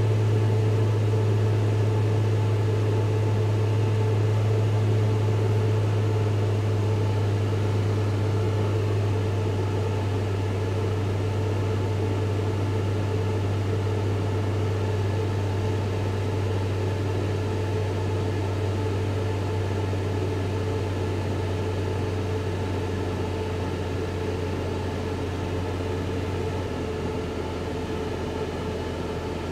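Steady whir and hum of a wind tunnel's airflow with a 3D-printed four-blade drag turbine spinning in it. The low hum drops slightly in pitch about nine seconds in and again near the end, and the sound slowly gets quieter.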